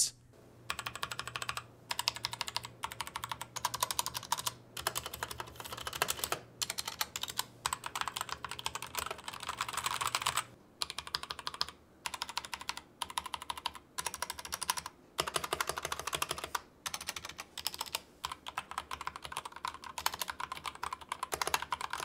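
Fast typing on a Royal Kludge RK84 mechanical keyboard with tactile brown switches, in runs of a second or two with brief pauses. About ten seconds in it changes from the stock keycaps to LTC PBT KDA-profile keycaps, which lose the tinny sound for a more solid, thwacky one.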